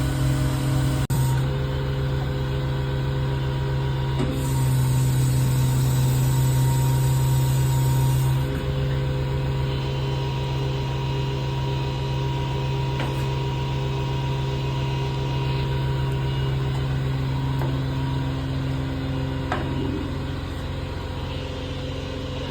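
A vehicle engine running steadily with an even low pulsing drone, louder for a few seconds from about four seconds in, with a brief dropout about a second in.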